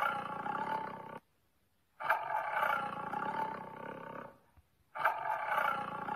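Animal roar sound effect of a fantasy creature played by an augmented-reality card app, repeating in calls about two seconds long: one ends about a second in, another runs from two to about four seconds, and a third starts about five seconds in.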